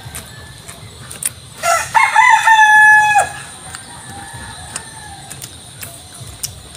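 A rooster crowing once, about two seconds in: a call that rises, then holds its pitch for over a second before breaking off.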